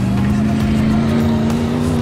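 Truck engine revving up under load, its pitch climbing steadily and levelling off near the end.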